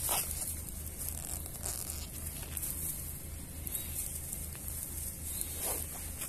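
Dry grass rustling and crackling as a puppy moves and rolls about in it, over a low steady rumble. Two brief falling squeaks, one at the start and one near the end.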